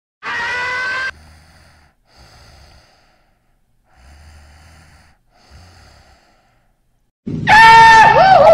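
Cartoon vocal sound effects: a short, strained groan about a second long, then four soft breaths, then near the end a loud voice sound whose pitch wavers and falls.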